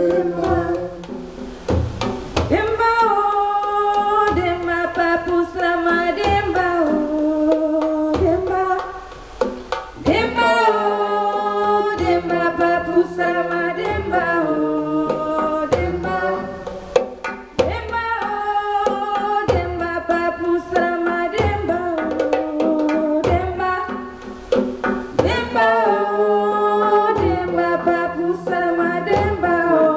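Voices singing a repeated chant in phrases with short breaks between them, over hand drums beating a steady rhythm.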